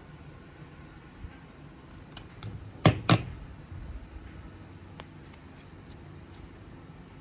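A metal hand trowel set down on a glass tabletop: two sharp knocks close together about three seconds in, with faint taps from handling plastic yogurt pots and potting soil around them.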